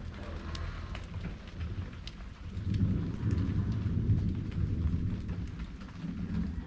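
Light drizzle with scattered drop ticks under a low rolling rumble of thunder that swells about two and a half seconds in and eases off near the end.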